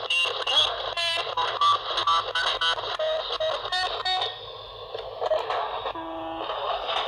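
Olympus micro-cassette recorder playing back cut-up tape audio through its small speaker, muffled inside a board box packed with wool: choppy fragments of recorded sound that start and stop abruptly, with a short steady tone about six seconds in.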